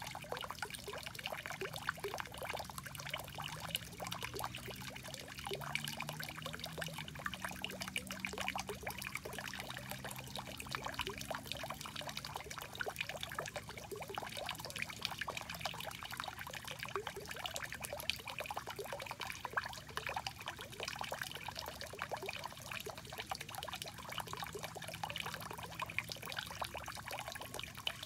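Thin jet of water from a frog-statue fountain spout splashing steadily into the pool.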